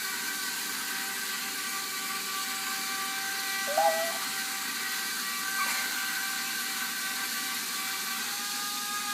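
Small electric gear motors of an Arduino-driven toy robot whirring steadily as it drives itself around. A short chirp sounds about four seconds in, and a faint click follows soon after.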